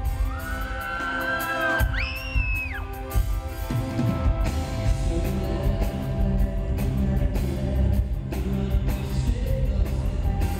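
Live rock band playing through a PA in a large hall: electric guitars, a drum kit and a male lead vocal. In the first few seconds two high, held cries ring out over the music, the second pitched higher than the first.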